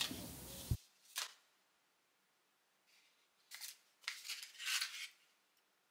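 Kraft paper sleeve rustling and crinkling as it is handled and a dip pen is slid out: a brief crinkle about a second in, then a few more short rustles between three and a half and five seconds in.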